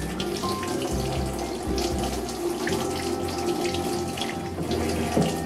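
Water running from a tap into a stainless-steel sink and splashing over hands being rinsed under it.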